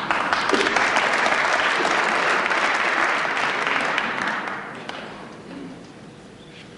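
Snooker hall audience applauding a good snooker shot. The applause breaks out suddenly, holds for about four seconds and then dies away.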